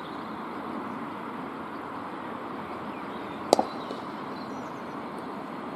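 Cricket bat striking a leather ball: one sharp knock with a brief ring, about three and a half seconds in, over steady outdoor background noise.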